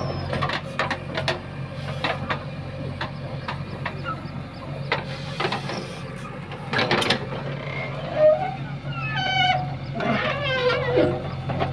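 JCB 3DX backhoe loader's diesel engine running steadily under work, with repeated clanks and knocks from the digging arm and bucket. A few wavering, pitched calls stand out about two-thirds of the way in.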